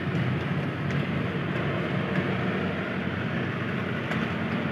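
Steady roadside traffic noise with a low engine drone. A few faint light clicks come from a spoon stirring syrup in a plastic cup.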